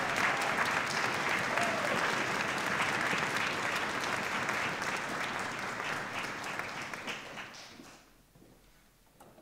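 Audience applauding a soloist's entrance, with dense clapping that thins to a few last claps and stops near the end.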